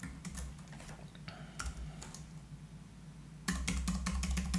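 Typing on a computer keyboard: a few scattered keystrokes, then a fast run of keystrokes for the last second or so.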